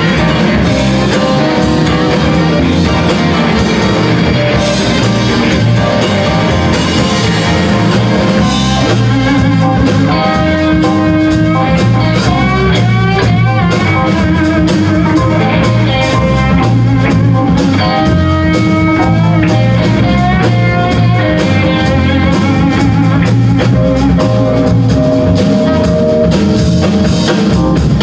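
Live band playing an instrumental passage on electric guitars, bass and drum kit, with a steady beat and a lead line of sliding, bent notes over it.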